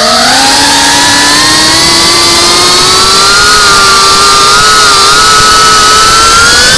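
Cinewhoop FPV drone's brushless motors and propellers whining, heard from the camera on board. The pitch sits low at the start, climbs slowly and then rises more steeply near the end as the throttle comes up.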